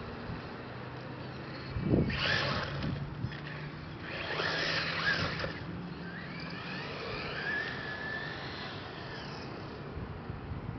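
Exceed Sunfire RC buggy's motor whining, rising and falling in pitch as it speeds up and eases off, with louder bursts about two seconds in and again around four to five seconds in.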